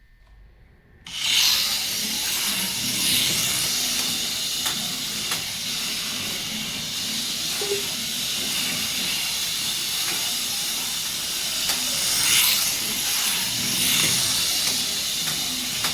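HO-scale 1966 Batmobile slot car running around a plastic track: a steady, hissy whir of its small electric motor and wheels on the track, starting abruptly about a second in.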